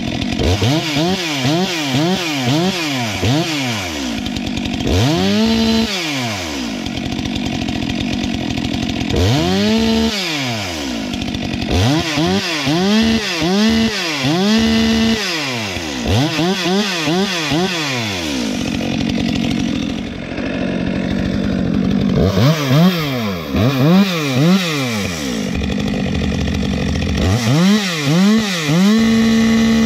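Stihl MS462 two-stroke chainsaw revved over and over from near idle to full throttle and back, about two revs a second, in several runs. Between the runs it holds a steady speed.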